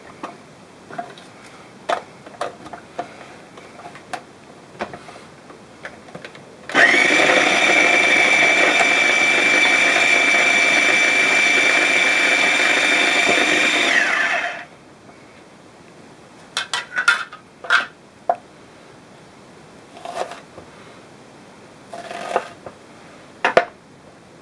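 Small electric mini food chopper mincing red onion: the motor starts about seven seconds in and runs steadily with a high hum for about eight seconds, then stops. Before and after, scattered light clicks and knocks as the plastic bowl and lid are handled.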